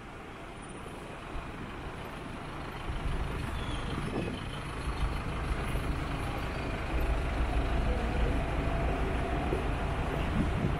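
City street traffic, with the low engine rumble of a heavy road vehicle growing louder from about three seconds in and staying strong to the end.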